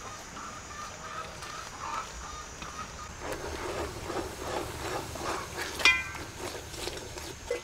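Metal ladle stirring and scraping melted palm sugar bubbling in an aluminium pot. From about three seconds in there is a busy run of scraping and crackling strokes, and a single sharp ringing knock comes about six seconds in.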